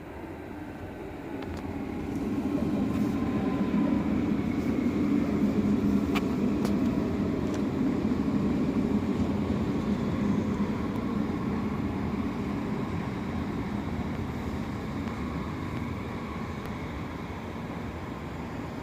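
DB Class 423 electric multiple unit pulling into the station: its rumble swells about two seconds in, with an electric motor whine falling in pitch as it slows. A few sharp clicks come near the loudest part, then the sound fades gradually.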